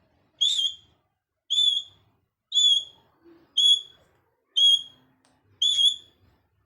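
A parrot whistling the same short, high note six times, about once a second.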